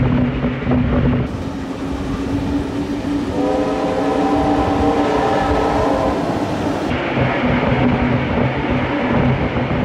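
Passenger trains running at speed on parallel tracks, with a steady rumble and clatter of wheels on rail. About three seconds in, a train sounds a long chord-like blast that lasts about three seconds.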